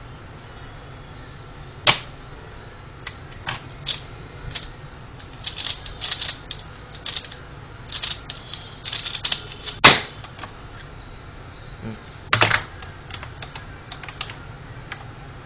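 Pyraminx puzzle being turned fast in a speedsolve: bursts of quick plastic clicks from about three to ten seconds in. Sharp single knocks come about two seconds in, at about ten seconds (the loudest), and again about twelve and a half seconds in.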